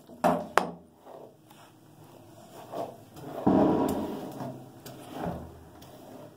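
Two sharp knocks near the start, then the scratchy rustle of a hairbrush drawn through long hair in a couple of strokes, the longest about halfway through.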